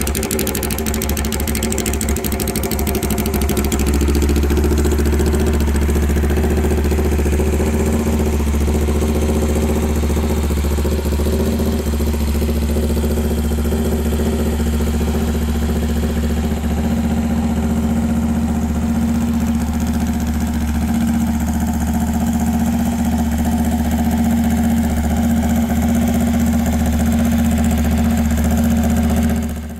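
A 1965 Honda CL77 Scrambler's 305 cc parallel-twin engine idling steadily, settling a little louder about four seconds in, then fading out at the end.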